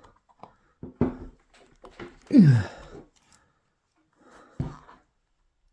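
Strained grunts and breaths of effort, a few short ones with the loudest, about two seconds in, falling steeply in pitch, while a tight rubber protective boot is forced over a cordless impact wrench's body.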